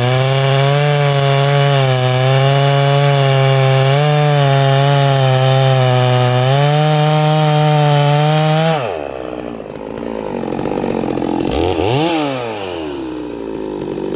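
Neo-tec NS892 two-stroke chainsaw with a .404 chain running at full throttle in a cut, holding a steady pitch under load for about nine seconds. The pitch then drops sharply as the throttle is let off. About two seconds later it gives one quick rev up and back down.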